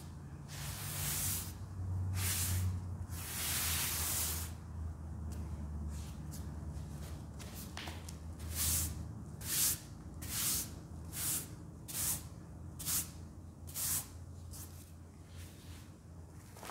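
Dry scouring powder (Ajax mixed with baking soda) swished and rubbed: a few longer soft swishes of hands sweeping through the powder, then, from about halfway, a run of short, regular swipes about one a second as a sponge is rubbed through it.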